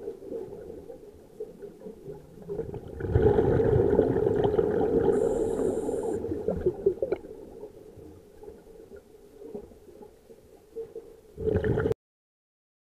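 Scuba diver's exhaled regulator bubbles, heard inside an action camera's waterproof case as a gurgling rumble: one long burst about three seconds in that fades over several seconds, and a shorter one near the end that cuts off suddenly into silence.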